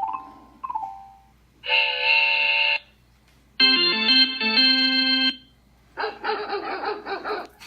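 Ring doorbell chime alert tones being previewed one after another. A quick two-note chime sounds twice, then a steady ringing tone, then a short stepping melody, then a busier pitched sound near the end.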